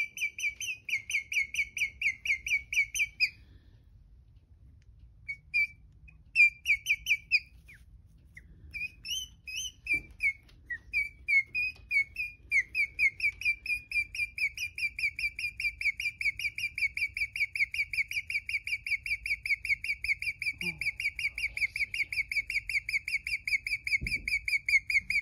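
Guinea pig chirping like a bird (its so-called singing): a long string of rapid, high, evenly spaced chirps. The chirps stop a few seconds in, come back in halting bursts, then run on steadily for the second half.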